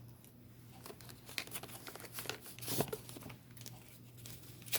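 Tarot cards being shuffled and handled: irregular papery rustling and flicking, busiest in the middle, over a faint steady low hum.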